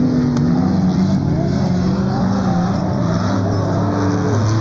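Several off-road race vehicle engines running and revving around the dirt circuit, their pitches rising and falling and overlapping.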